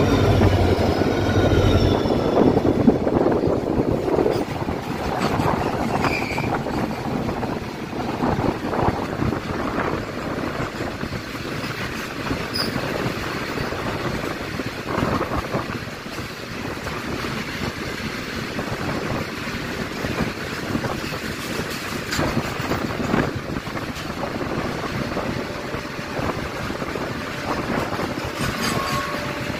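Freight train passing close alongside at speed on the next track: a deep throb from its WDG4 diesel locomotive in the first couple of seconds, then the steady rush and rattle of covered goods wagons going by, with brief clatters and short wheel squeals.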